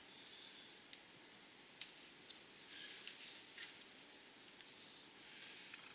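Faint clicks and soft high rasps of plastic cable ties being pulled tight around e-bike wiring, with a couple of sharp clicks in the first two seconds.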